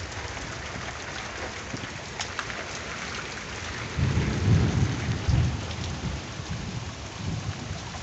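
Heavy rain falling steadily, with a low rumble of thunder rising about halfway through, loudest for a couple of seconds, then dying away in weaker swells.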